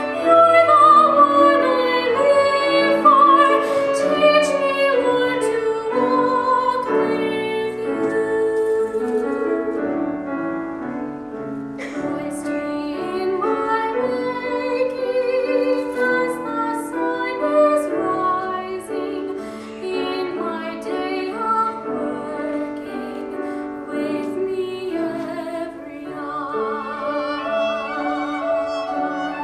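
A woman singing a hymn solo into a microphone, in a trained voice with vibrato on held notes, over instrumental accompaniment.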